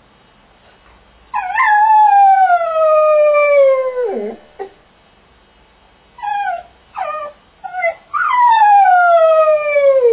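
Dog howling while shut in a crate: a long howl that starts high and slides slowly down in pitch, dropping low at its end, then three short yelps, then a second long falling howl near the end.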